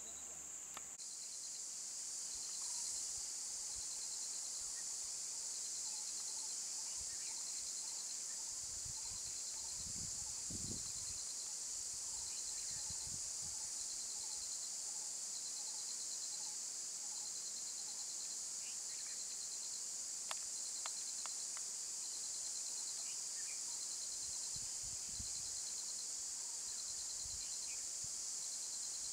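Steady, high-pitched drone of a forest insect chorus, starting about a second in, with a few soft low thuds in the middle.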